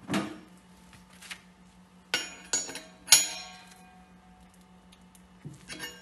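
Metal clanks and clinks from a wrench and a bottle adapter against the valve of a steel CO2 (R744) refrigerant cylinder as the adapter is tightened on. There are three sharp, briefly ringing strikes about two to three seconds in, the last the loudest, and a few light clicks near the end.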